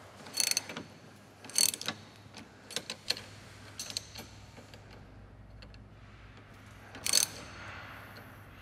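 Ratchet wrench clicking in short bursts as its handle is swung back and forth to run a bolt down snug on a rear suspension toe link, while a second wrench holds the nut. There is a quieter gap of a couple of seconds after about four seconds, then one more burst.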